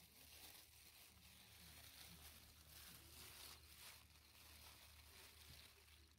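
Faint crinkling of a thin plastic bag as hands handle and open it, coming in soft uneven swells over a low steady hum.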